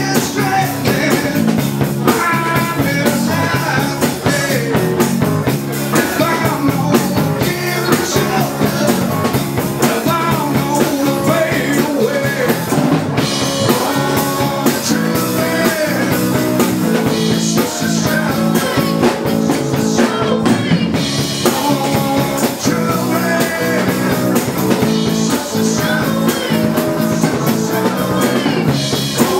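Live dance band playing a rock number, with a drum kit keeping a steady beat under guitar and other instruments.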